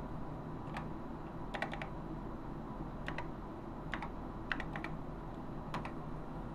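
Keys being typed slowly on a TRS-80 Model III keyboard, one letter at a time: uneven, spaced-out key clicks, several coming in quick clusters, over a steady low hum.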